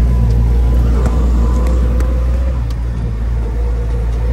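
UAZ-452 van driving: a steady low engine and road rumble with a thin steady whine over it and a few light clicks.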